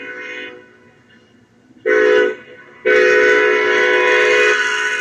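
Union Pacific freight locomotive's multi-chime air horn: the tail of one blast, a short blast about two seconds in, then a long blast held to the end. This is the short-then-long close of a grade-crossing horn signal.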